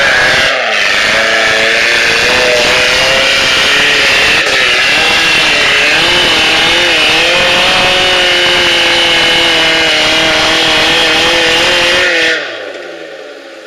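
An off-road 4x4's engine revving hard under load as it climbs a muddy track. The pitch wavers up and down. The loud run stops about twelve seconds in, and a quieter engine sound is left.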